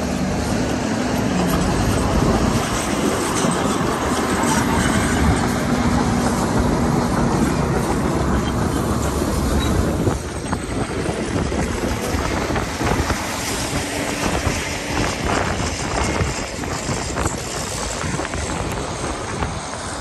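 Dump truck's diesel engine running as the raised bed tips, with a load of dirt and rocks sliding out and rumbling onto the pile. The level drops a little about halfway.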